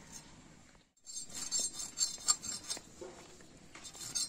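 Small fish being scaled and cut against the blade of a boti: quick scraping and clicking strokes that start about a second in, with a few sharper clicks in the middle.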